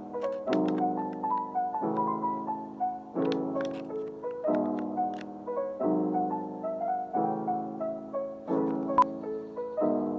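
Background music of soft piano chords that change every second or so, with a light melody above them, and a single sharp click near the end.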